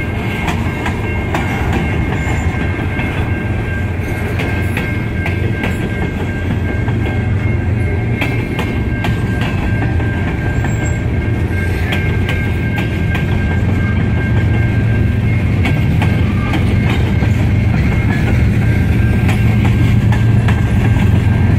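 Covered hopper grain cars of a long freight train rolling past close by: a steady low rumble with wheels clicking over the rail joints, and two thin steady high tones running through it. It grows slightly louder near the end.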